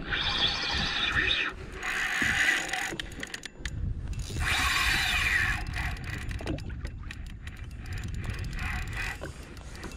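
Spinning fishing reel, an Okuma Ceymar C65, whirring in several separate bursts of about a second each as line is worked against a fish.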